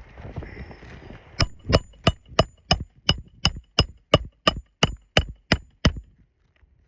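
Hand hammer driving a roofing nail into a replacement asphalt shingle: about fourteen quick, even blows, roughly three a second, each with a slight metallic ring. The strikes begin about a second and a half in and stop about a second before the end.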